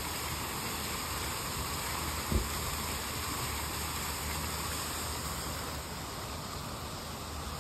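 Fountain jets splashing into the basin, a steady rushing of water that eases a little about six seconds in. A single low thump about two and a half seconds in.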